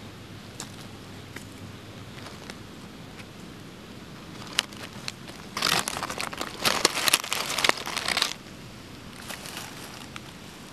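Dry leaves and pine needles crackling and crunching close to the microphone, in a dense burst of about three seconds a little past halfway, with a few scattered ticks before it and a fainter rustle after.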